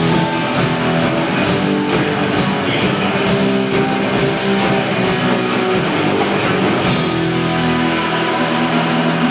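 Rock band with electric guitars and drum kit playing an instrumental passage live. Near the end the cymbals drop out and a chord is held.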